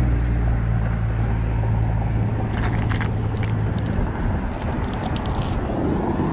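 A low, steady engine hum that fades out about two seconds in, over outdoor background noise, with a few light clicks near the middle.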